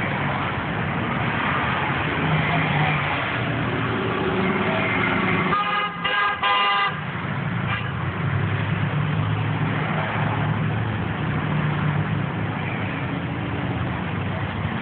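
Steady street traffic and engine rumble, with a vehicle horn honking in two short blasts about six seconds in.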